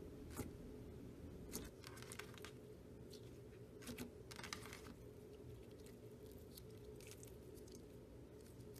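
Faint sticky clicks and crackles of slime being mixed and pressed by hand, coming in scattered short bursts over a low steady hum.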